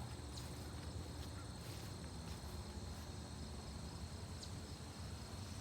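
Crickets chirping, a steady high trill with no break, over a faint low rumble.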